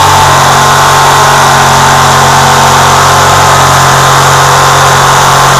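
A red handheld electric power tool running steadily at full speed as it is pushed through wood, its motor giving a constant low hum with a steady whine above it.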